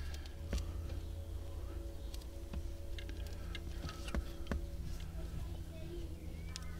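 Scattered light clicks and ticks as RCA plugs and cables are handled and wrapped in electrical tape, over a steady low hum.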